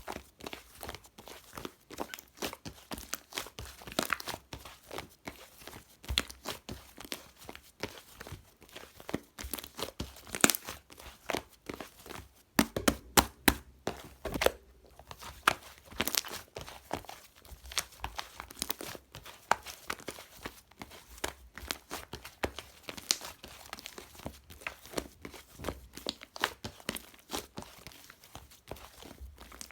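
Hands squeezing and poking slime, giving a dense, irregular run of small sticky pops and clicks with louder snaps now and then.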